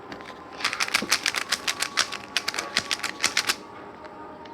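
A 3x3 Rubik's speed cube being turned fast by finger tricks, its plastic layers clacking in a quick even run of about eight clicks a second for some three seconds. The run is the U R' U' R algorithm done six times over, about two dozen turns, and the clicking stops abruptly.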